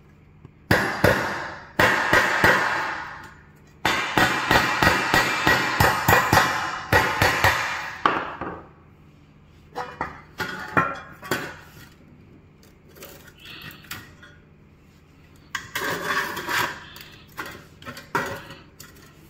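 Claw hammer striking steel cable trunking at its cut notches to bend it. A few separate heavy blows come first, then a fast run of ringing metal strikes for about four seconds. After that come sparser clanks and the rattle of the sheet-metal trunking being worked by hand.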